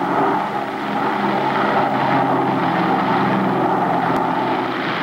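Propeller aircraft engines running with a steady drone, heard through an old 16 mm film soundtrack.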